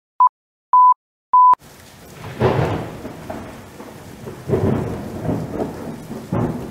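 Three short electronic beeps about half a second apart, then a thunderstorm sound effect: steady rain with rolling thunder that swells three times.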